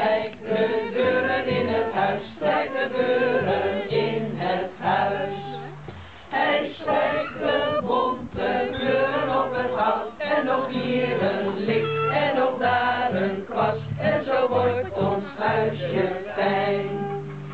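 A group of men and women singing a Dutch children's song together, accompanied by an acoustic guitar.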